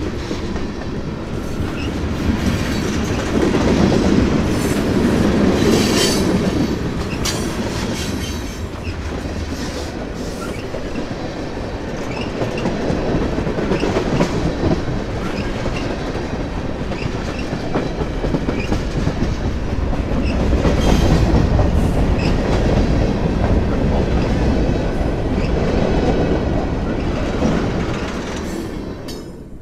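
Freight train rolling past: steel wheels running on the rail with a continuous rumble and clickety-clack over the rail joints, swelling and easing several times. The sound drops away sharply right at the end.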